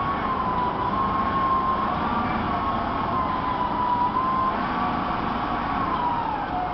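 Motor vehicle running with a high whine over a steady rumble. The whine drifts slowly up and down in pitch and falls off near the end.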